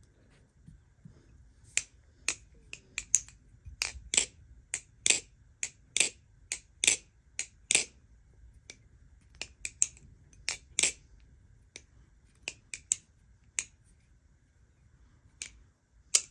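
Balisong (butterfly knife) being flipped: a run of sharp, irregular metallic clicks as the handles swing shut and snap against each other and the blade. The clicks come quickly at first and grow sparser in the second half.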